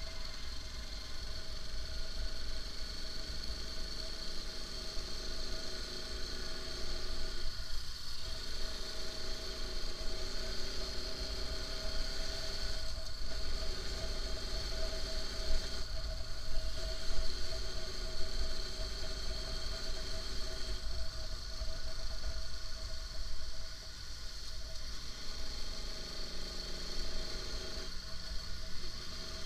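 Motorcycle engine running while the bike is ridden, its note shifting as the rider changes speed, over a low wind rumble on the microphone.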